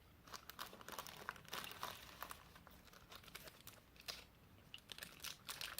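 Faint, irregular crinkling of plastic snack wrappers being handled.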